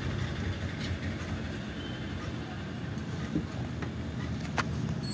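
Steady low rumble of background noise, with a few light clicks and taps from hands handling a phone on a mouse pad; the sharpest click comes about four and a half seconds in.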